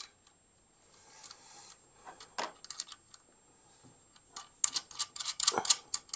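Small metal clicks and taps of steel flat washers, spring washers and M8 nuts being fitted by hand onto the studs of a Victron Lynx Distributor bus bar: a few scattered clicks, then a quick run of them near the end.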